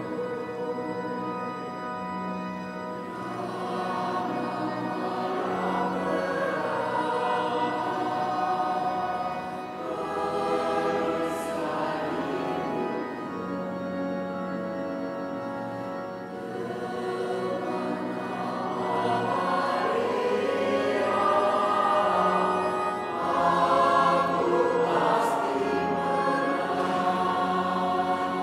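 Mixed church choir of women's and men's voices singing a hymn in two-part harmony, with instrumental accompaniment. The singing swells louder in the second half.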